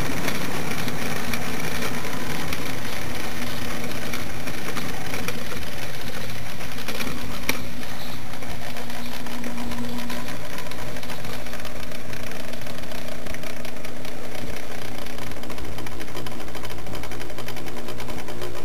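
HO-scale model train running on its track, heard from close on board: a steady electric-motor whir with wheel and rail noise, and a single sharp click about seven and a half seconds in.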